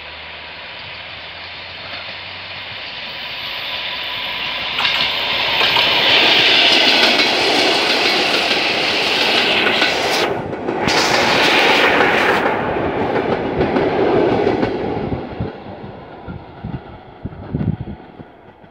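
Suburban electric multiple unit passing close by: a rush of wheels and motors that swells as it approaches, stays loud with wheels clattering on the rails as the cars go by, then fades away as the train recedes.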